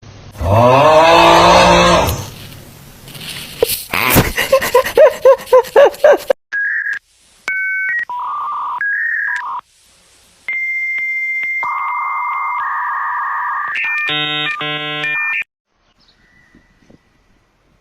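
A loud pitched cry that rises in pitch, then a quick run of short pitched calls, followed by a long series of steady electronic beeps and tones that jump between pitches, like phone or dial tones, stopping suddenly about two seconds before the end.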